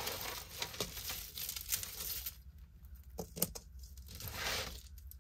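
Packaging crinkling and rustling as it is handled for about two seconds, then a few light clicks and another short rustle.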